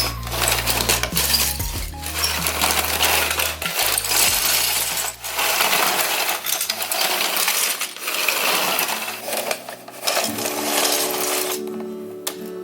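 A pile of small hard objects clattering and rattling continuously as a Bruder toy bulldozer's blade pushes through them.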